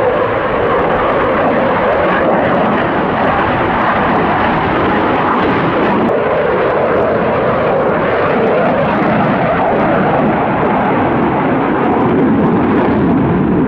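Eurofighter Typhoon FGR4's twin Eurojet EJ200 turbofans giving a loud, steady jet roar as the fighter flies aerobatic manoeuvres.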